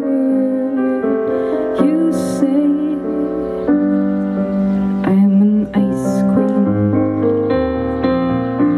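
A slow piano ballad played live, with a woman singing long, wavering held notes over the piano chords.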